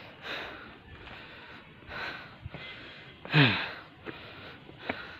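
A man breathing hard, out of breath from climbing a rocky hill. There are soft breaths every second or two, a louder sigh-like vocal sound falling in pitch about three and a half seconds in, and a sharp click near the end.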